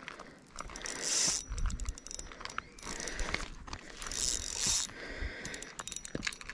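Spinning reel being cranked: the reel's gears click and whir in uneven spells.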